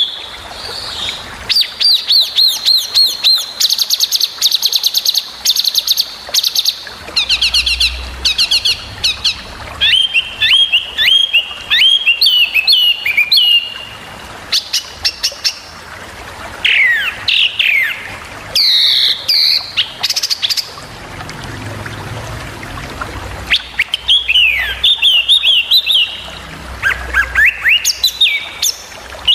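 A small songbird singing sharp, rapid-fire phrases of quick repeated notes, trills and fast falling whistles, high-pitched, with short gaps between phrases and a longer pause about two-thirds of the way through.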